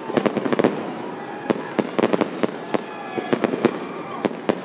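Aerial fireworks going off in a rapid, irregular series of sharp bangs and pops, often several in quick succession.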